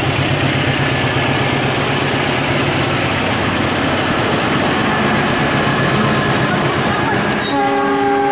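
CC206 diesel-electric locomotive passing close by at speed, its engine running and wheels rolling over the rails, followed by its coaches. Near the end a multi-tone train horn starts sounding and holds.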